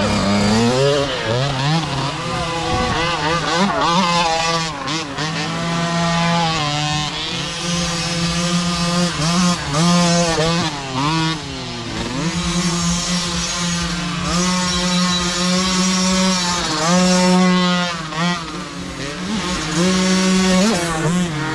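Several small youth dirt bike engines revving hard as they pass close by, one after another. Their pitch climbs and drops over and over with throttle and gear changes, and the engines overlap.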